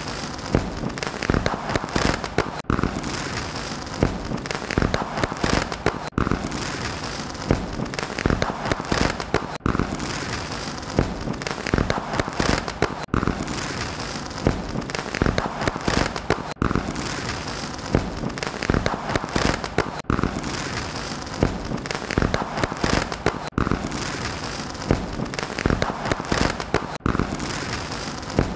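Fireworks display: a dense, continuous barrage of bangs and crackling bursts. The same few seconds of bursts repeat about every three and a half seconds, as a looped recording.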